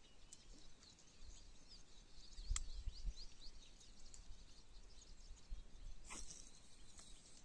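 Small birds chirping and twittering, with low gusts of wind rumbling on the microphone and one sharp click about two and a half seconds in.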